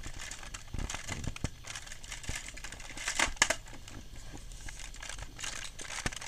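Fingers and nails picking, pressing and scraping at the cardboard door of a chocolate advent calendar, making irregular crinkling clicks and small tearing sounds, with a sharper cluster about three seconds in.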